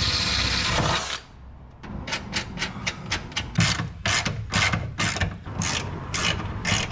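Hand ratchet wrench clicking in quick, regular strokes, about four a second, as bolts holding a bracket to the truck's inner fender are run in. It is preceded by a loud, noisy burst of about a second at the start.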